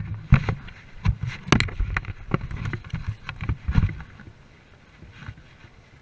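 Close handling noises: irregular knocks, clicks and thumps on the wooden pier deck, with rustling of a canvas bag. The knocks crowd the first four seconds and then give way to quieter rustling.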